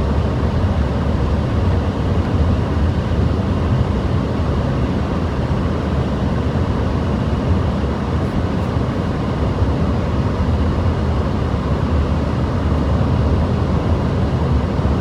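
Steady road and wind noise inside a car's cabin at freeway speed, with the car driving through strong gusty desert wind. It is a continuous low rumble that never stops or changes.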